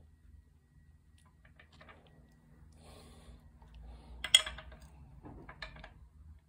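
Light metallic clicks and knocks of hand tools working on an engine as it is turned in small steps. The loudest is a sharp metal clink about four seconds in, and a few quicker clicks follow near the end.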